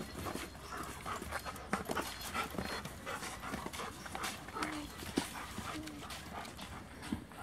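A dog panting, with scattered light clicks and scuffs throughout.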